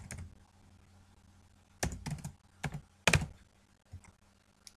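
Computer keyboard typing: about ten irregular keystrokes, bunched together in the middle.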